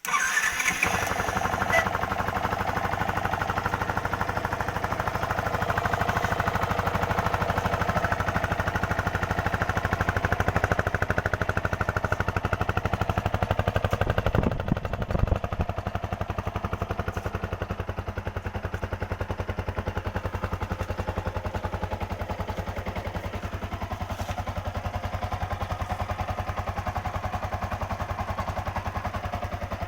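Yamaha R15 V2's single-cylinder four-stroke engine running steadily after the rebuild, with an even, rapid pulse of exhaust beats that starts suddenly.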